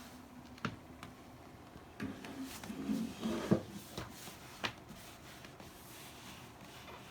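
A few sharp clicks and knocks with a brief patch of low rustling handling noise; the loudest knock comes about three and a half seconds in.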